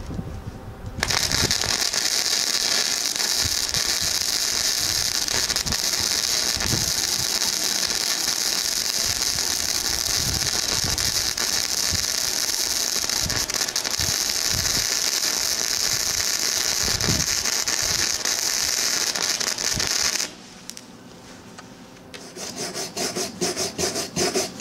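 Harbor Freight 90 amp flux-core wire welder arc, modified to DC, burning steadily with a loud hiss and crackle for about nineteen seconds at wire feed speed 6, then cutting off. Near the end come rapid scrubbing strokes as the fresh bead is cleaned.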